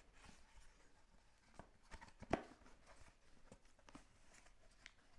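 Near silence with a few faint clicks and knocks of laser-cut wooden camera parts being handled and pressed together as an inset is fitted into its frame, the clearest knock a little after two seconds in.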